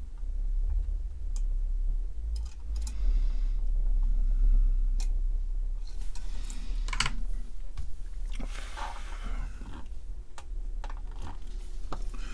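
Scattered small clicks and taps of hand tools on a printed circuit board during soldering, with two short hissing patches, over a steady low hum.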